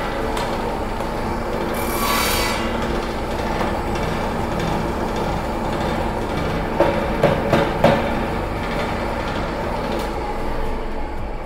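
Table saw motor running steadily, its blade cutting briefly into the wood of a cricket bat's handle about two seconds in, then spinning free. Three or four sharp knocks come a little past the middle.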